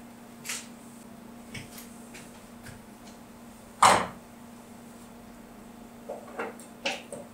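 Handling noises at a counter: a few light clicks, then one louder knock about four seconds in, and a few more clicks near the end, over a steady low hum.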